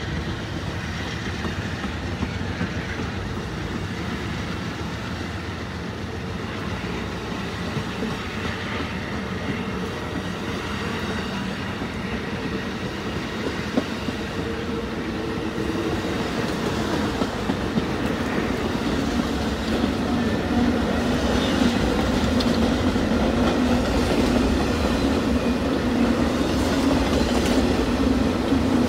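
Amtrak Auto Train passing at rolling speed: the Superliner bilevel passenger cars and then the enclosed auto-rack cars rumble by, with wheels clicking over rail joints. The sound grows louder in the second half, when a low steady drone joins in as the auto-rack cars go past.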